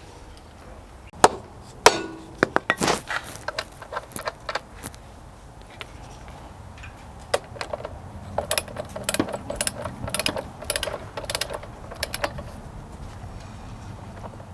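Metal tool and part noises: sharp knocks and clinks, then a quicker run of clicks, as the front wheel of a Honda ST1100 motorcycle is handled and fitted back on.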